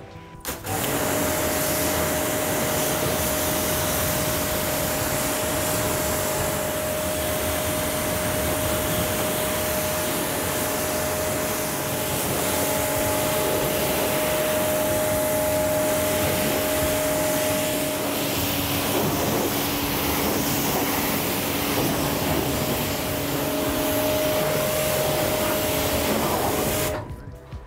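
Pressure washer running, its jet rinsing citrus pre-wash off a car's paintwork: a steady hiss of spray over a steady motor hum. It starts about a second in and cuts off suddenly near the end.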